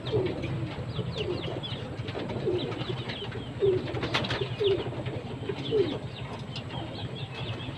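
Racing pigeons in a loft cooing over and over, many short low falling coos overlapping, with scattered high chirps and a sharp click about four seconds in.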